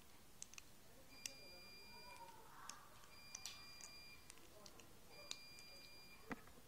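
Near silence with faint, scattered small clicks and ticks of rubber loom bands being looped over two pens with a hook. A sharper tick comes near the end.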